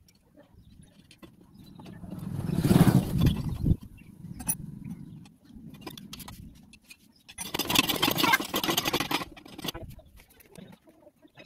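Hand pump being worked by its handle as it is tried out after repair with a new washer and nuts. The pump sounds in two loud, noisy spells: the first builds up about two seconds in, and the second comes about seven and a half seconds in.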